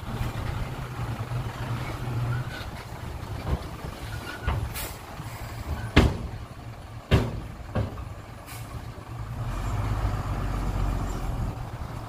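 Hyundai dump truck's diesel engine running as the truck moves off with its bed raised, with several short sharp hisses and knocks in the middle, the loudest about six seconds in. The engine grows louder and deeper near the end.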